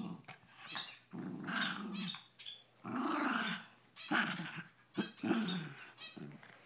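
Poodles play-fighting, growling in a string of short growls that rise and fall in pitch, broken by brief pauses.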